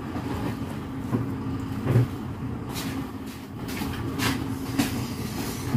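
Steady low hum of kitchen background noise, with a low knock about two seconds in and a few short rustles and knocks after it as someone gets up from the table and walks off.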